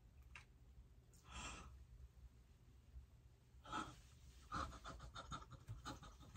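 A woman's sharp gasp of surprise about a second in, then, from a few seconds later, a run of quick, breathy, panting breaths.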